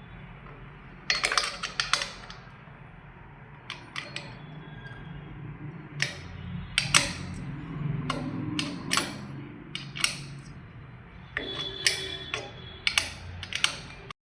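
Irregular metallic clicks and knocks from an Allen key and the steel parts of a dual monitor stand as its large bolt is tightened, heard in clusters over a steady low hum. The sound cuts off suddenly near the end.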